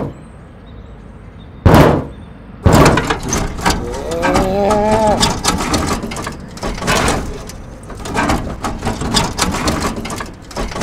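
One heavy thump, then a long run of banging and clattering knocks, like someone beating and rattling a vending machine, with a wavering groaning cry partway through.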